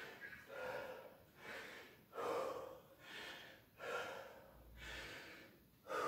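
A man breathing hard and fast, one heavy breath in or out about every second, out of breath after a high-intensity exercise round.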